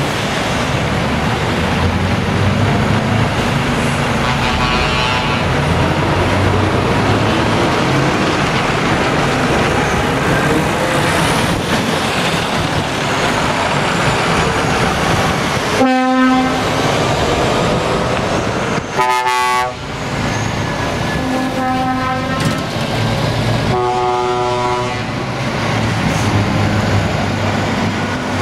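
Heavy trucks' diesel engines running as the lorries pull out one after another, with four horn blasts in the second half, the last about a second long.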